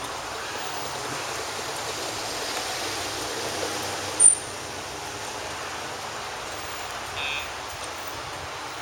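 Steady rushing background noise. About four seconds in comes one loud, very short high-pitched chirp, and about seven seconds in a short beep on two pitches at once.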